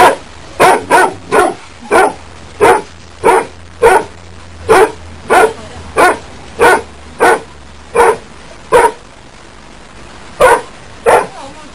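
A dog barking over and over in short, sharp barks, about one and a half a second, with a brief pause near the end.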